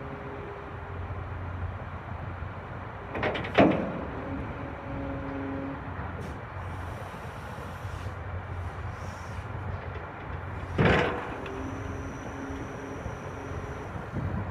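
2018 Cat 320 tracked excavator's diesel engine running steadily, with a shifting hydraulic whine as the boom and arm move and the bucket is lowered to the ground. Two loud metallic clunks stand out, one about three and a half seconds in and one about eleven seconds in.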